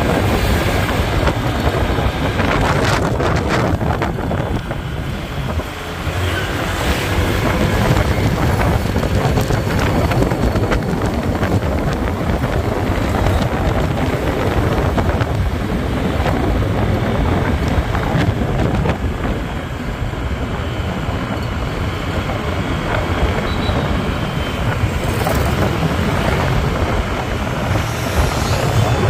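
Wind buffeting the microphone on a moving motorbike, a steady low rumble mixed with road and traffic noise.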